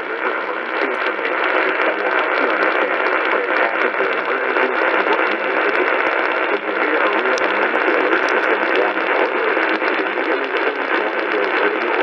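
Steady static hiss from a Kaito Voyager Pro radio tuned to a weather radio station.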